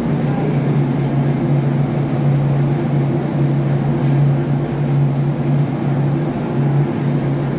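Ship's engine-room machinery running steadily: a loud, constant low hum with a noisy wash above it.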